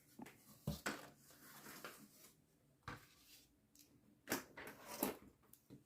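Faint, scattered light taps and soft rustles from handling foam board pieces on a work surface, a few separate knocks with quiet pauses between them.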